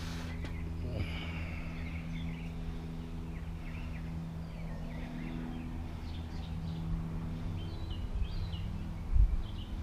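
Steady low hum of an idling vehicle engine, with small birds chirping over it and a single low thump about nine seconds in.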